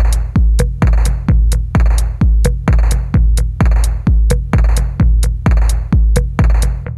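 Background electronic music with a steady beat: a heavy kick drum with booming bass about every two-thirds of a second and hi-hat ticks between.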